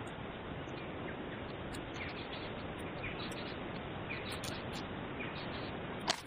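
Steady outdoor ambience hiss with faint, short bird chirps about once a second, and a single sharp click near the end.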